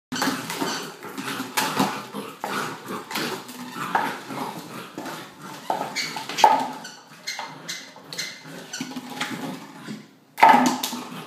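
English Springer Spaniel puppy barking in short yaps while it bats and bites a plastic bottle, which rattles and clatters across the floor in quick clicks.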